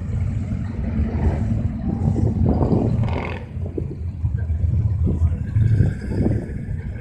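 Engines of off-road trucks running in a mud pit, their revs rising and falling.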